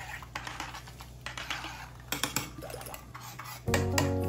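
A metal utensil stirring cold beetroot-and-kefir soup in a stainless steel pot, with light clinks and scrapes against the pot and the liquid swishing. Background music plays underneath and grows louder with a new chord near the end.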